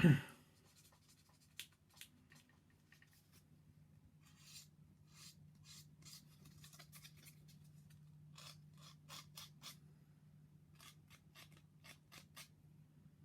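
Sanding stick rubbing quickly back and forth over a small plastic model part in clusters of short scratchy strokes, smoothing away the gate marks where the part was cut from the runner. A brief louder sound at the very start, and a steady low hum underneath.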